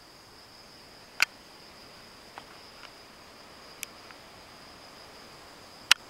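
Insects calling in one steady high tone, with a few sharp ticks over it, the two loudest about a second in and near the end.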